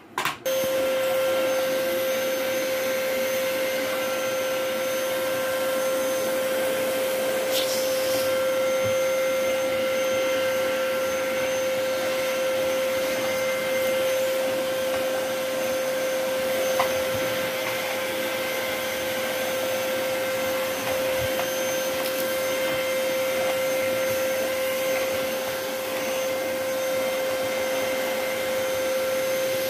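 Canister vacuum cleaner switched on right at the start, then running steadily with a constant high motor whine as its floor brush works over a shaggy rug.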